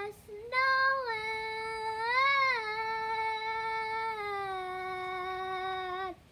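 Husky howling in one long, drawn-out note from about half a second in, swelling and rising in pitch around two seconds in, then held and sinking slowly until it stops just before the end.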